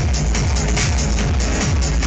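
Loud electronic dance music played over a venue's sound system: a heavy bass line moving between notes under a fast, steady beat.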